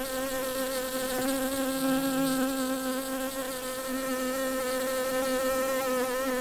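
A bee buzzing steadily: one continuous drone whose pitch wavers slightly.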